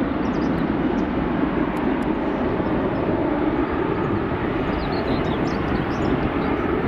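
Jet airliner engines running with a steady, even roar that holds level throughout.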